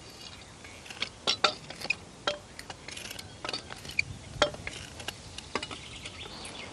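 Metal pole climbers clanking against a concrete utility pole as a lineman climbs it: a string of irregular sharp clicks and knocks.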